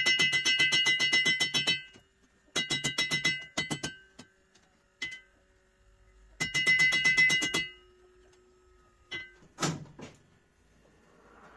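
A hand hammer rapidly striking a hot steel knife blade on an anvil. Each blow makes the anvil ring with the same clear tones. There are three quick runs of blows separated by pauses, then a few single strikes near the end.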